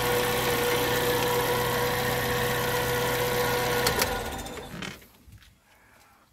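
Suzuki APV petrol engine idling steadily, then switched off about four seconds in: a click, and the engine runs down to near silence within a second.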